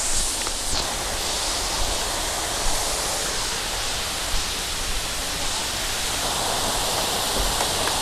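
Waterfall pouring steadily, a constant even rush of water that grows slightly louder near the end.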